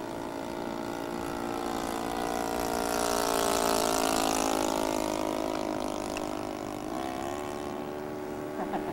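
Saito 56 four-stroke glow engine of a Hangar 9 Cessna RC model plane running steadily in flight as the plane makes a close pass. The drone rises in pitch and gets louder to a peak about four seconds in, then drops in pitch and fades as the plane flies away.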